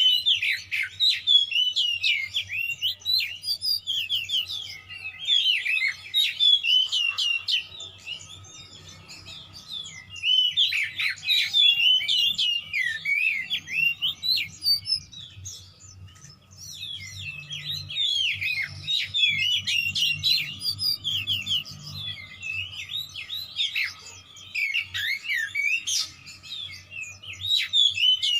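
Oriental magpie-robin (kacer) singing a fast, varied song of quick rising and falling whistled notes, in bursts of several seconds with short lulls between them. This is the excited, combative full song that keepers call 'emosi'.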